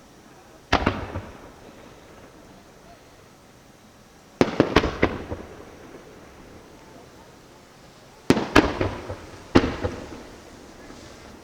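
Fireworks going off in sharp bangs, each trailing off in a crackle: one about a second in, a quick cluster of several in the middle, and a few more near the end.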